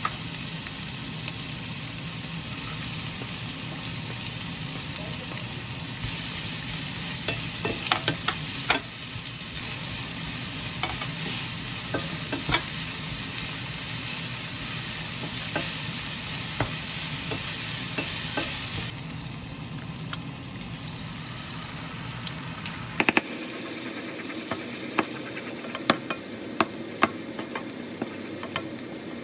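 Food sizzling in a frying pan while a utensil stirs it, with scattered sharp clicks and taps against the pan. The sizzle's level steps up and down a few times.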